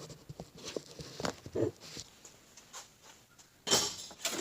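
Light clicks and taps of metal automatic-transmission parts being handled, with a louder burst of noise near the end.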